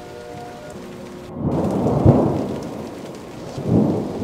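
Steady rain with two rolls of thunder, each swelling and dying away: the louder one about a second and a half in, a shorter one near the end.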